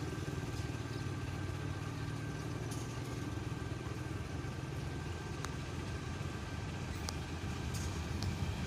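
Low, steady rumble of the approaching KA Kahuripan's diesel locomotive, growing a little louder near the end.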